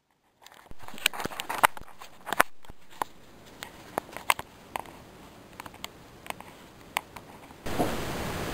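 Irregular sharp clicks and small taps from a laptop being handled while its webcam records: keys, case and touchpad knocked and pressed, a dozen or so clicks spread unevenly. Music comes in near the end.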